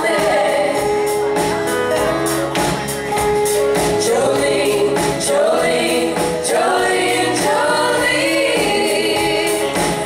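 Live band performance: several women singing together in harmony over electric guitar and a drum kit with steady percussion.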